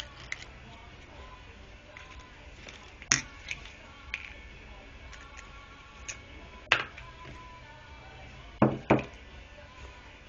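Faint background music with a series of sharp knocks and clicks, the loudest a quick double knock near the end, as of tool parts being handled and set down.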